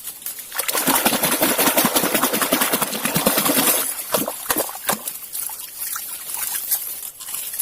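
Water splashing and sloshing for about three seconds, then a few single splashes.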